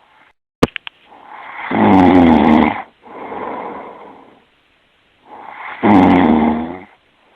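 A man snoring in his sleep: two long, loud, rough snores about four seconds apart, with a quieter breath between them. A sharp click comes just before the first snore.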